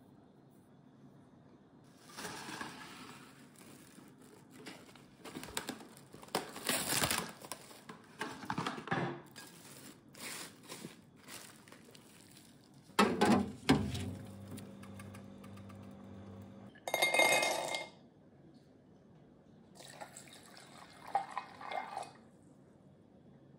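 Plastic cling film crinkling as it is stretched over a glass mixing bowl, then a sharp knock, and water poured over cashew nuts in a glass measuring jug, with glassy clinks.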